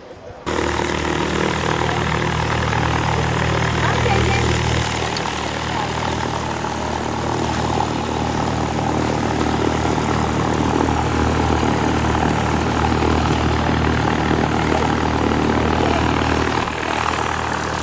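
Propeller aircraft engine running steadily with a low drone. It starts suddenly just after the start and drops away near the end.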